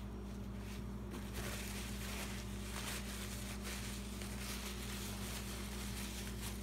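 Steady low hum with a faint hiss: room tone, with no distinct event.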